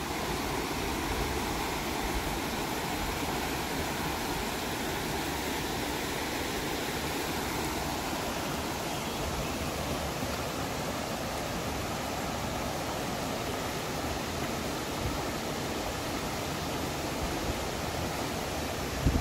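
Rocky forest creek rushing steadily over stones and small cascades, a constant even rush of running water.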